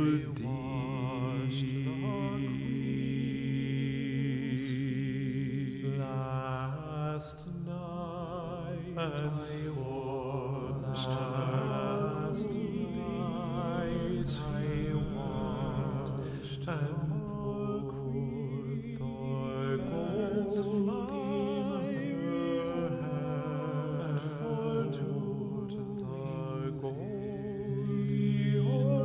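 Several voices singing slow, chant-like sustained notes with vibrato, overlapping at different pitches over a low held note.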